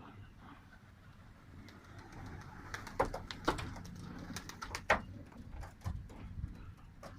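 Domestic pigeons cooing, with several sharp claps starting about three seconds in.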